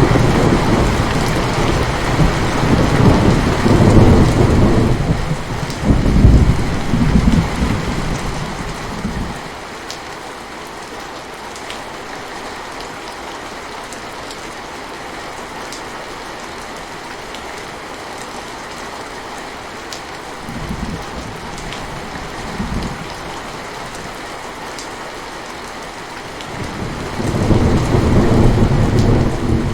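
Steady rain falling, with thunder rolling: a long deep rumble over the first nine seconds, two short rumbles a little past the middle, and another swelling near the end.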